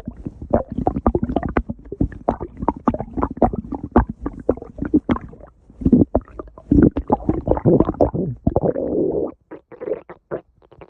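Human stomach growling and gurgling: a fast run of short pops and squelches, turning into longer rumbling growls past the middle, with a brief lull near the end.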